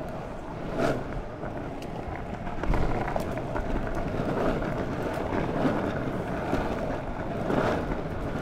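Longboard wheels rolling steadily over an asphalt path, with a few short knocks from bumps in the surface, and wind on the microphone.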